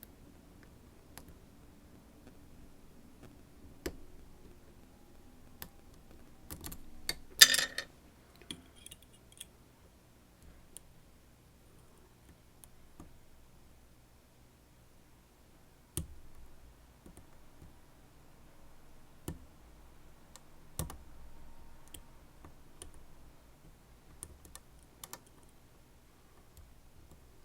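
Scattered light clicks and taps of lockpicking tools working a Dom RS8 lock, with one louder, brief clatter about seven and a half seconds in.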